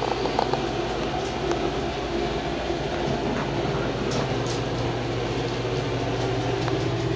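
A steady mechanical hum with a low drone and a few faint clicks.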